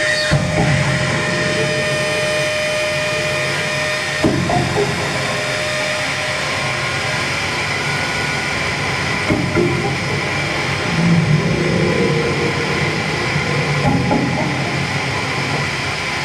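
Live experimental noise music from electronics and effects pedals: a dense, continuous wash of noise with steady held tones, one of which drops out about 6 seconds in, broken by low rumbling swells and knocks about 4, 9, 11 and 14 seconds in.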